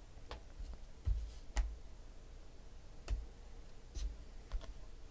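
Panini Select football cards being flipped off a stack and set down on a pile: several separate light clicks and taps, the loudest a little over a second in.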